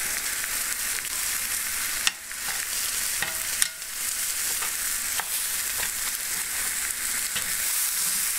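Smoked beef and chili peppers sizzling with a steady hiss as they sear in a 12-inch cast iron skillet. Metal tongs click against the pan several times as the pieces are turned, loudest about two and three and a half seconds in.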